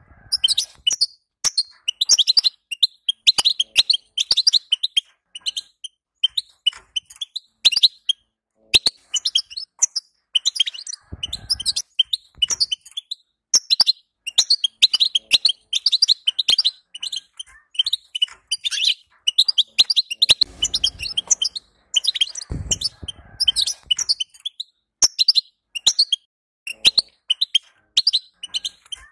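European goldfinch twittering: rapid, high chirps strung into long phrases with short pauses between them. A few soft low thuds are heard in the middle.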